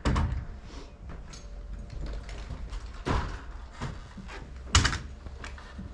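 Sharp knocks of timber against the wooden roof framing: one right at the start, one about three seconds in, and the loudest near the end.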